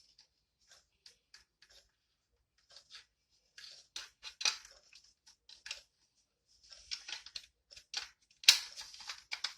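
Plastic cover of a vintage Lifesaver smoke alarm being fitted back on: irregular small clicks, taps and scrapes of plastic being handled, with one sharp click about eight and a half seconds in.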